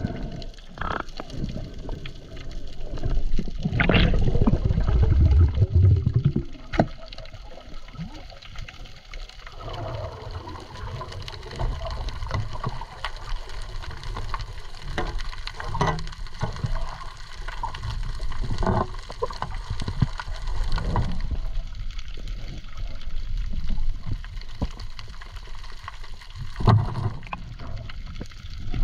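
Water sounds on a spearfishing dive: sloshing and gurgling around the camera, with scattered sharp clicks and a louder low rush of water about four to six seconds in.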